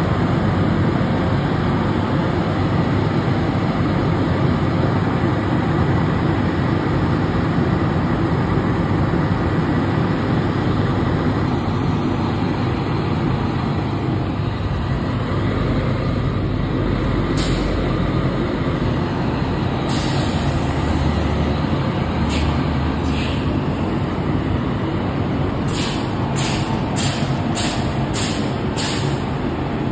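Fire trucks' diesel engines idling with a steady low rumble. Short hisses of released air come in from about halfway through, then a quick run of about six near the end.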